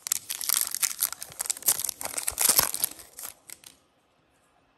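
Foil wrapper of a 2022 Topps Chrome baseball card pack being torn open and crinkled in the hands, a dense papery crackle lasting about three seconds before it stops.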